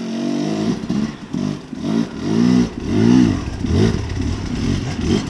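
Enduro dirt bike engine revving up and dropping back over and over, the rider working the throttle in short blips while climbing over rock.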